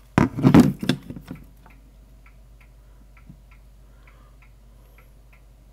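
A circuit board and parts handled with a short clatter on a wooden workbench. After that comes a faint, even ticking, about three ticks a second.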